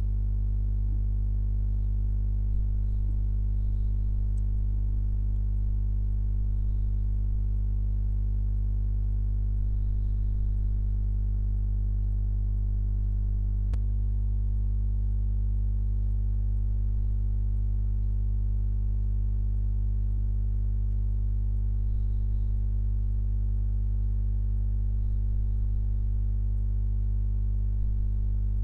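A steady, unchanging low drone made of many held tones stacked together, without rhythm or variation. A single faint click sounds about halfway through.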